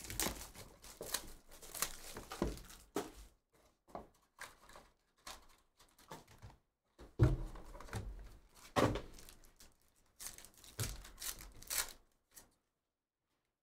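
Foil trading-card packs and a cardboard hobby box being handled and torn open: crinkling and ripping of foil wrappers with a few dull thumps of the box. The sound stops abruptly near the end.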